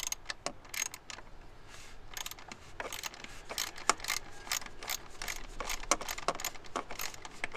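Socket ratchet wrench clicking in short, irregular runs as a loosened bolt is backed out of the engine.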